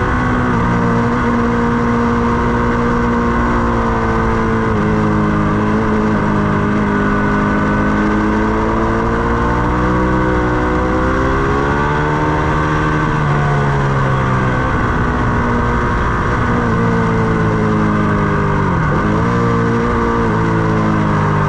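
Ducati Panigale 899's Superquadro V-twin running hard on track, recorded onboard with wind rush over it. The engine note swells and falls gently through the corners, with a quick drop and climb back near the end.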